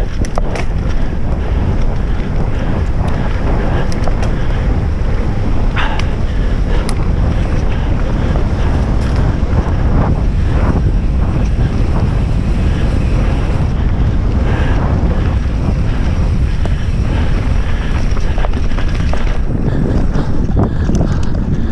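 Wind buffeting the action camera's microphone during a fast mountain-bike descent, with scattered clicks and rattles of the bike jolting over the rough trail.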